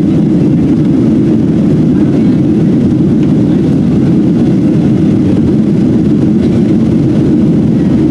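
Inside the cabin of a Boeing 737-700 in flight, its twin CFM56 jet engines and the airflow make a steady, loud, low rumble.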